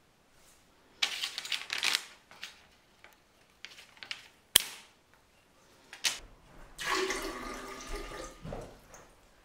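Paper crinkling, then a single sharp scissor snip through a flower stem. Near the end, water poured from a cup into a vase, splashing steadily for about a second and a half.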